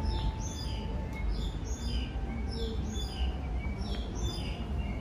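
Birds chirping: a run of short, high notes that each fall in pitch, repeating every half second or so, over a steady low rumble.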